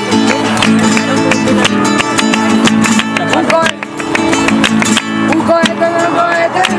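Nylon-string flamenco guitar strumming an instrumental passage between sung verses of sevillanas, with hand claps (palmas) keeping the beat.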